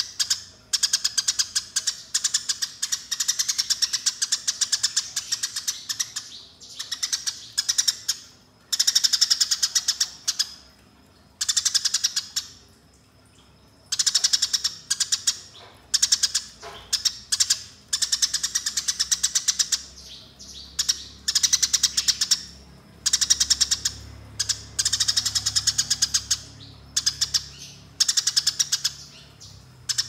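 Eurasian tree sparrow chirping in fast, dense runs of short, sharp notes: the rolling 'fighting' chirp (gereja tarung). The runs are broken by short pauses and a gap of about two seconds near the middle.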